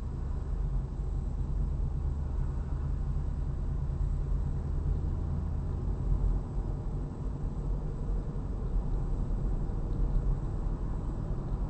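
Ford Mustang driving slowly, its engine and tyre noise picked up inside the cabin as a steady low hum. The hum's pitch shifts about six seconds in.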